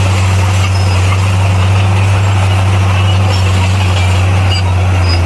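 Bulldozer's diesel engine running steadily, a constant low drone.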